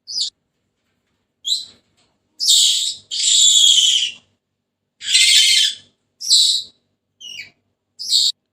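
Senegal parrot calling: a string of about eight high-pitched calls, some short chirps and a few longer, harsher screeches of about a second each, with silent gaps between.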